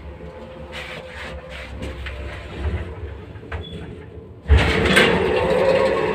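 MLZ passenger lift (c. 1991): a low steady hum with a few small clicks, then about four and a half seconds in the lift doors bang with a sudden loud knock and go on rattling and sliding.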